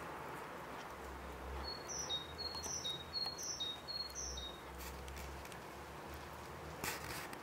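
A small songbird chirping: a short high phrase that steps down in pitch, repeated about four times a little under a second apart, over a low steady hum.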